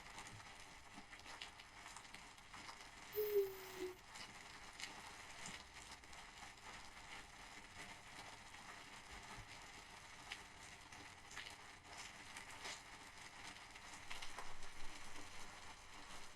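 Faint scattered crackling and rustling, growing a little louder near the end, with one short pitched sound, like a brief hum, about three seconds in.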